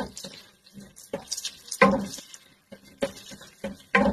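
Wooden spatula stirring sausage and garlic in a metal pot, knocking and scraping against it in irregular short clatters.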